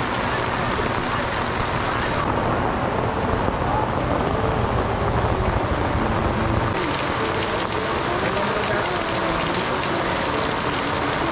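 Torrential rain pouring onto a street and its stall awnings and umbrellas, a steady heavy hiss. For a few seconds in the middle the sound turns duller and lower, with the high hiss dropping away, before the full hiss returns.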